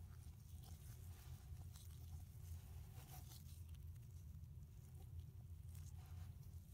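Faint, scattered crackling and rustling of kinetic sand being squeezed and pulled apart by gloved hands, over a low steady hum.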